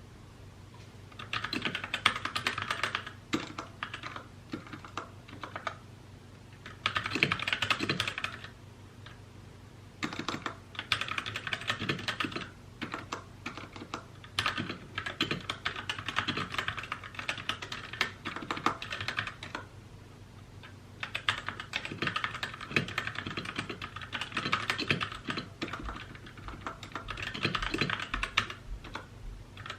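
Typing on a mechanical keyboard in bursts of several seconds, with short pauses between them.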